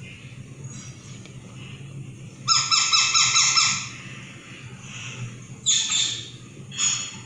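Young rose-ringed parakeet calling: a rapid string of repeated calls lasting about a second, then two shorter calls near the end.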